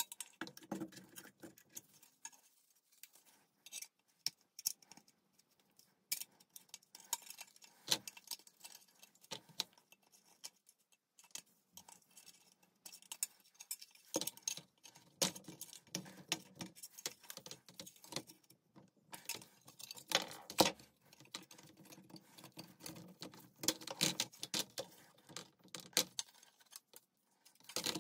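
Small metal parts of a rusty toy sewing machine and hand tools being handled, giving irregular clicks, taps and light metallic clinks, busier in the second half.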